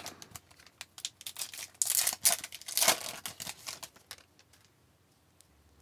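Foil wrapper of a hockey card pack crinkling and tearing as it is ripped open, with small crackles and clicks. The loudest tearing comes about two and three seconds in, and the rustling stops about four seconds in.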